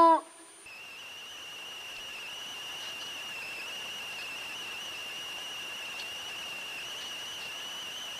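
The end of a wolf's howl, sliding down in pitch and cutting off right at the start. Then a steady, high-pitched whining tone over a faint hiss.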